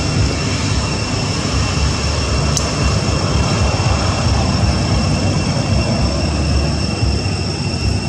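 Steady road-traffic noise with a low rumble, and a steady high-pitched whine held over it.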